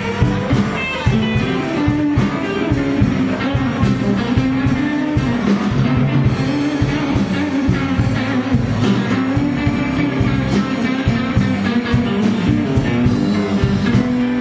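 Live blues band playing an instrumental stretch: electric guitars, electric bass, keyboard and drum kit together, with a steady beat of drum hits.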